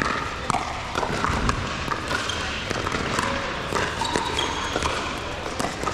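Basketball game: a ball bouncing on a court, with irregular knocks over a background of crowd voices.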